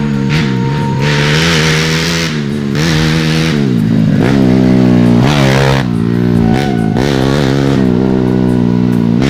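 Honda Grand four-stroke single-cylinder motorcycle engine, built to 125 cc, running under throttle. Its pitch holds fairly steady, then drops and climbs sharply in a rev about four to five seconds in.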